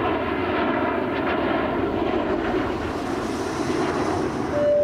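Jet airliner in flight, its engines giving a steady, even noise, with a short steady beep near the end.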